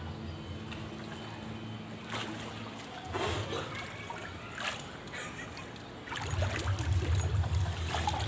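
Water splashing a few times as a swimmer surfaces and moves in a swimming pool, over a steady low hum that grows louder about six seconds in.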